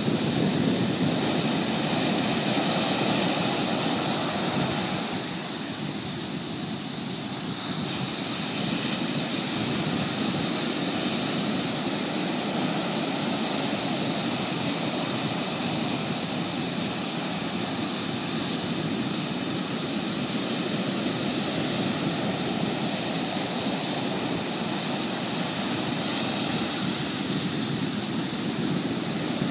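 Pacific Ocean surf: a steady wash of breaking waves, easing briefly about five seconds in before building again.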